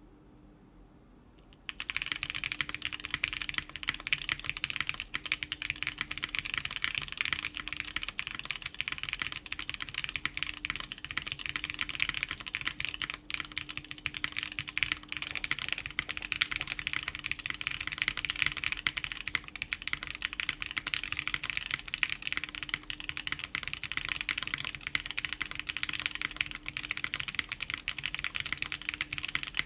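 Continuous fast typing on a Plywrks Spyder TKL mechanical keyboard in o-ring mount, starting about two seconds in. The keyboard has factory-lubed Gateron Khonsu switches, a polypropylene plate and GMK keycaps.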